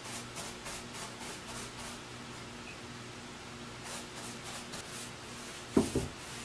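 Paintbrush swishing across a wooden slab in quick repeated strokes, about four a second, as clear shellac is brushed on. Near the end comes a single loud thump as the shellac can is set down on the wood. A steady low hum runs underneath.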